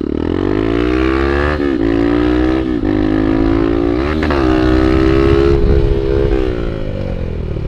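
Honda Bros 150 single-cylinder four-stroke motorcycle engine accelerating hard, its revs climbing and dropping back three times as it shifts up through the gears, then holding steady before easing off near the end.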